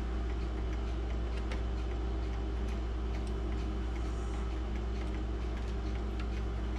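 A mechanical clock ticking steadily over a low, constant hum, with faint small clicks of metal parts being handled.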